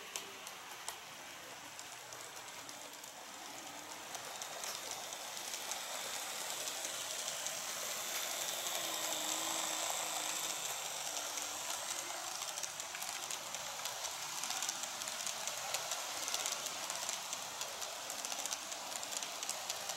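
Model train wheels rolling on sectional track as a locomotive and its sleeper coaches pass close by. There is a steady hiss with a rapid run of small clicks over the rail joints, growing louder from a few seconds in.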